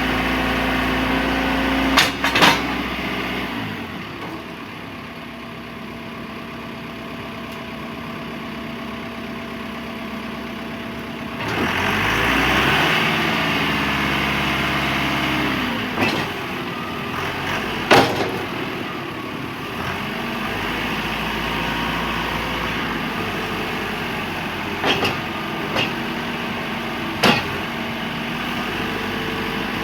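John Deere 310L EP backhoe loader's four-cylinder diesel engine running, its speed rising and falling about twelve seconds in, with several sharp metallic clanks.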